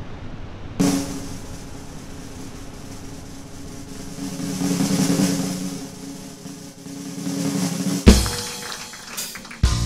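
A drum roll that starts about a second in, swells and fades, then a single loud crash with a ringing tail about eight seconds in; a band strikes up just before the end.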